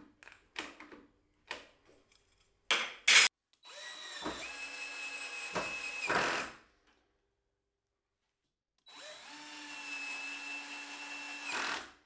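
Cordless drill boring into hardwood in two runs of about three seconds each; each run starts with a rising whine as the motor spins up, then holds a steady pitch. Before the first run there are a few light clicks and two sharp, loud knocks.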